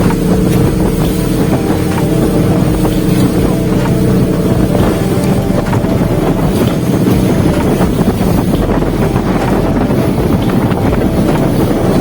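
Motorboat engine running steadily under way, with wind buffeting the microphone and the rush of water.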